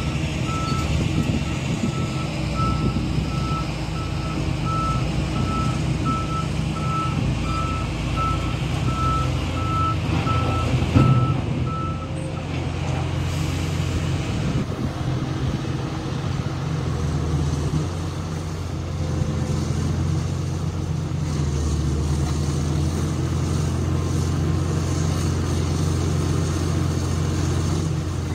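LGMG MT88 mining dump truck reversing into loading position, its reversing alarm beeping about twice a second for the first twelve seconds over the steady running of heavy diesel engines. The beeping stops with a short loud burst about eleven seconds in, then only the steady engine sound of the truck and the SANY SY870C excavator goes on.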